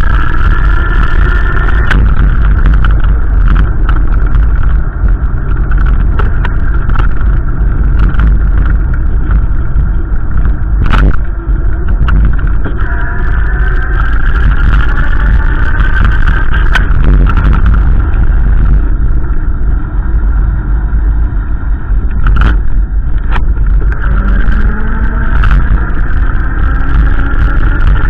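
Loud, continuous wind rumble on the microphone, with a motor vehicle's engine tones rising slowly in pitch several times, and a few sharp clicks.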